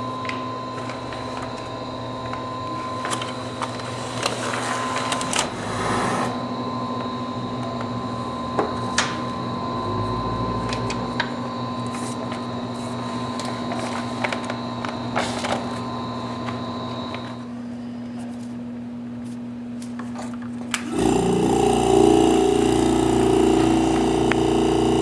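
Clear plastic vacuum-bag film crinkling and clicking as it is handled around a ski in its layup, over a steady hum. Near the end a vacuum pump starts and runs steadily, drawing the bag down tight onto the ski for curing.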